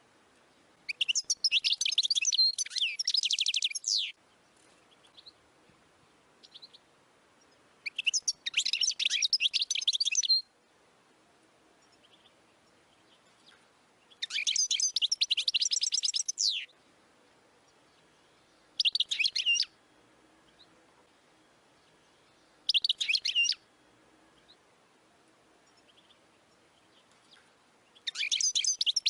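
European goldfinch singing in six bursts of rapid, high song with quiet pauses between. Four of the phrases last two to three seconds, and two short ones come in the middle.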